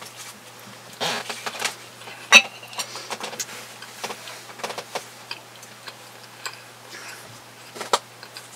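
Close-miked chewing of a sausage sandwich: wet mouth clicks and smacks in short irregular groups, with one sharp click about two and a half seconds in.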